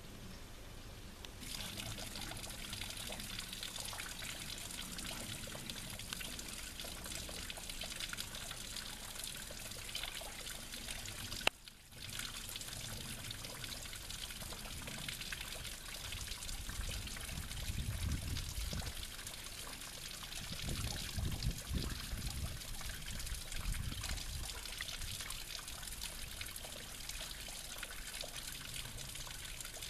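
A thin trickle of water running and splashing down a mossy rock face, a steady hiss of falling water that sets in about a second in. A few low rumbles come past the middle.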